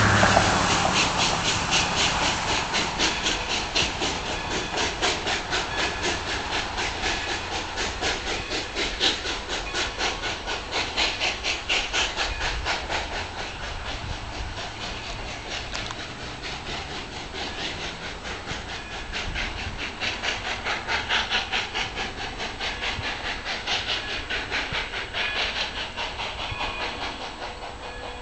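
Nevada Northern 4-6-0 No. 40 steam locomotive's smokestack exhaust barking in a fast, even beat as it works a passenger train uphill. The beat fades over the last few seconds as the engine runs into a tunnel.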